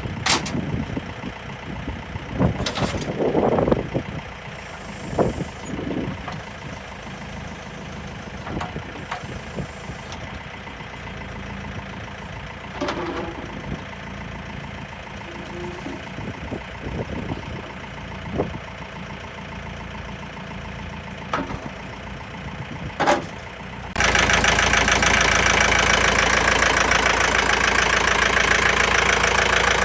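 John Deere 4320 compact tractor's diesel engine running steadily, with scattered clunks and knocks. About 24 seconds in the sound jumps abruptly to a much louder, steady rushing noise.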